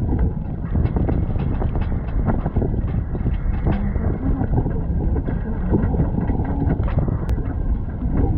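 Wind buffeting the microphone on the open upper deck of a moving double-decker bus, over the steady rumble of the bus and its tyres on the road.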